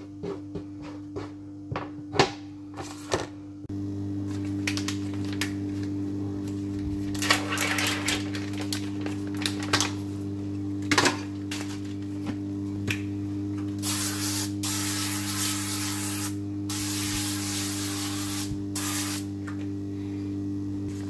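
Kitchen handling sounds: a few sharp clicks and taps from a small metal can being handled, then baking parchment being pulled from its box and spread over a metal baking tray. The parchment gives long spells of loud rustling and crinkling about halfway through.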